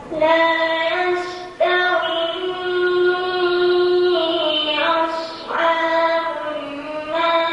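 A boy's voice chanting Qur'an recitation: long held melodic notes that step slowly in pitch, broken twice, about a second and a half and five and a half seconds in, by brief pauses.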